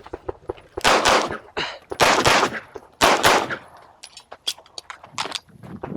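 9mm CZ SP-01 pistol firing a timed string in quick succession: loud shots in three bunches about a second apart, with fainter sharp cracks between and after.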